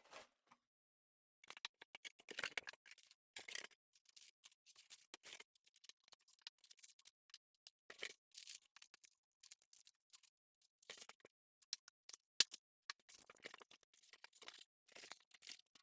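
Faint rustling, crinkling and scattered clicks of a box and its packaging being opened and handled, with one sharp click about twelve seconds in.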